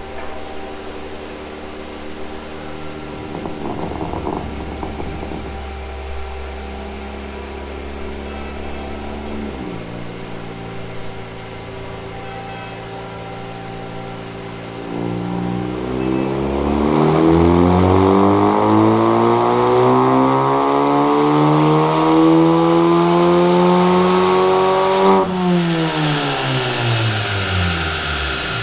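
Volkswagen T-Roc's 1.4 TSI turbocharged four-cylinder engine making a dyno pull. It runs steadily at first, then from about halfway in the revs climb steadily under full load for about ten seconds. It lifts off suddenly near the end and the revs fall away.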